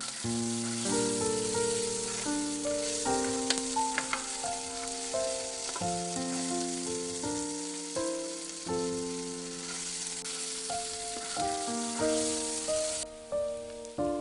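Food sizzling as it fries in hot oil in a pan, with a few sharp clicks a few seconds in. The sizzle stops shortly before the end. Gentle piano music plays throughout.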